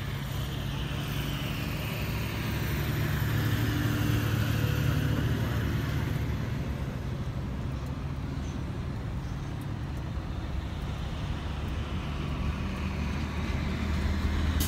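Vehicle engine idling steadily, heard from inside the stopped vehicle, under traffic noise that swells around four to five seconds in and again near the end.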